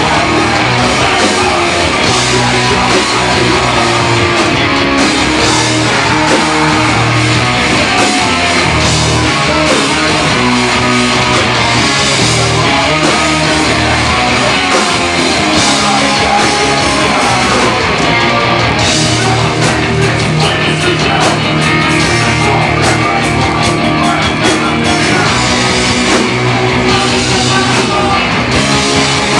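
Hardcore punk band playing live and loud: distorted electric guitars, bass and drum kit, with a vocalist singing into the microphone.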